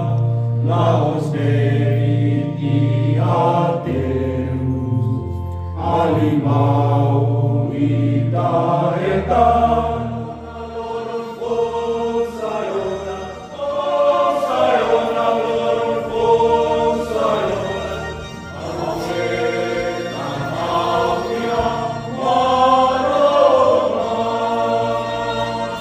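A group of voices singing a hymn together in a slow, chant-like way, over steady low notes.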